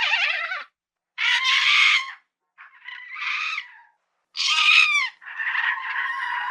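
Lemur calls: a run of five harsh, wailing cries separated by short silences, the last and longest carrying on past the end.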